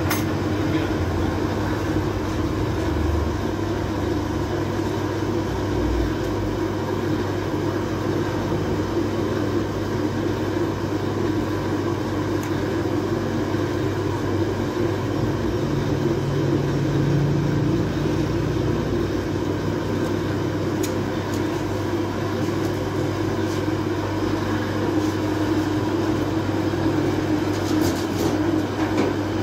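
Steady hum and drone of bakery machinery running, with an electric motor's hum at its core, and a few light clicks near the end.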